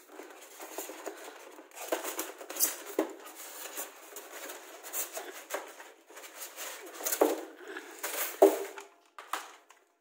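A plastic toy excavator and its remote being pulled out of a styrofoam packing tray: styrofoam scraping and squeaking against plastic, with several sharp knocks, the loudest about eight seconds in.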